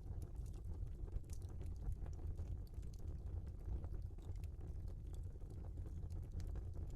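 Wood fire burning in a fireplace: a steady low rumble of flames with scattered small crackles and pops from the logs.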